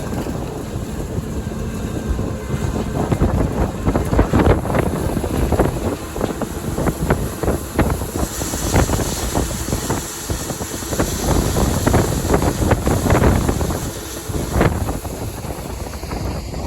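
Combine harvester running while harvesting corn: a dense mechanical din with irregular crackling, and wind buffeting the microphone.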